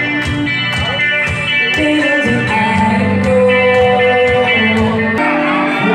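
Live band music: guitar playing sustained notes over drum hits, with no singing.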